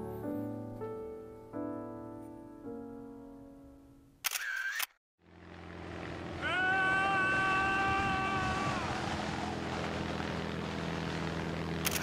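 Background music of struck notes that ring and fade, cut by a camera-shutter sound effect about four seconds in; after a short gap a fuller music bed swells in with a held higher tone for about two seconds, and a second shutter click comes at the very end.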